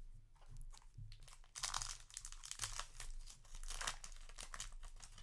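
Foil booster pack wrapper crinkling and tearing as it is opened, a dense crackle that starts about a second and a half in and dies away near the end.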